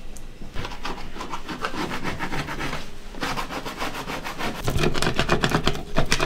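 Rapid back-and-forth scrubbing of a grimy enamel stovetop with a scrub pad, a fast rasping rub that pauses briefly about halfway through.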